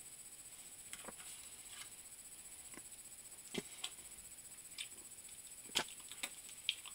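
Faint, scattered clicks and taps of small cardboard candy-cigarette packs being handled on a desk. The strongest tap comes nearly six seconds in.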